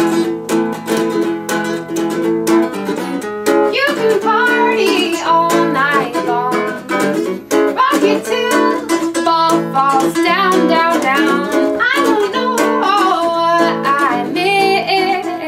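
Ukulele strummed in a steady rhythm while a woman sings along.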